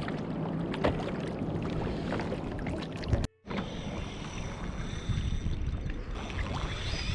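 Sea water splashing and lapping against an ocean kayak, with wind on the microphone and small knocks; the sound cuts out briefly about three seconds in.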